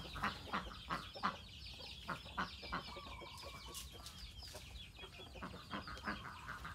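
Chickens clucking in short calls, with a dense chatter of high chirps from small birds behind them.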